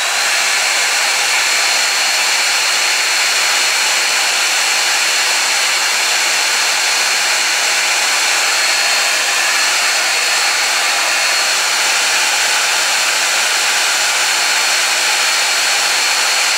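Dyson Supersonic hair dryer running steadily: an even rush of air with a thin, steady high-pitched whine over it.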